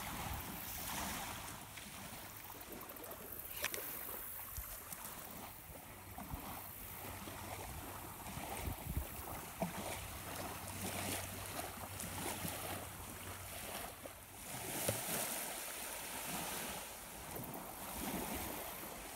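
Outdoor wind noise with a low rumble on the microphone, and a few faint clicks.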